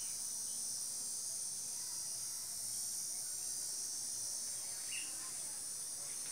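Steady high-pitched insect chorus, a continuous shrill buzz, with one short chirp about five seconds in.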